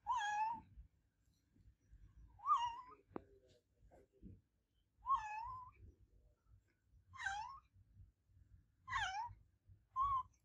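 Domestic cat meowing repeatedly: six separate calls, roughly two seconds apart, each under a second long, the last one short.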